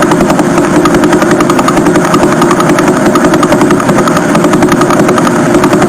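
Space data turned into sound: a loud, rapid, even pulsing buzz over a steady hiss.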